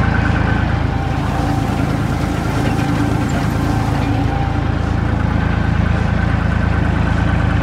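Tractor's diesel engine running steadily, pulling a straw baler through the field.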